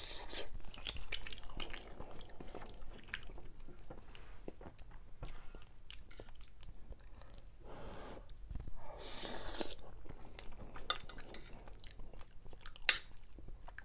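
Close-miked chewing of soft macaroni and cheese, with wet mouth sounds. A metal fork clicks lightly against the plate now and then, with one sharper clink near the end.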